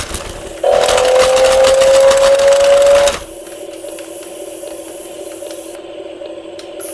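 A toy's small electric motor and plastic gearbox whirring loudly, its pitch creeping up as it runs. It starts about half a second in and drops to a much quieter steady hum about three seconds in.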